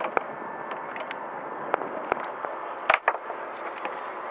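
Rod and reel knocking and clicking as they are handled at a boat's rail: about half a dozen irregular sharp clicks and knocks, the loudest pair about three seconds in, over a steady background noise.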